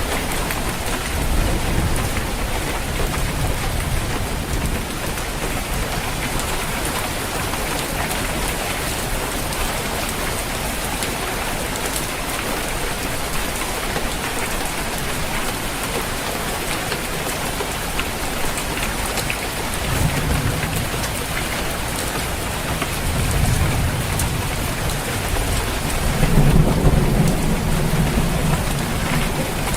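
Steady rain falling on a roof, with rolls of thunder rumbling low at intervals, the strongest swelling near the end.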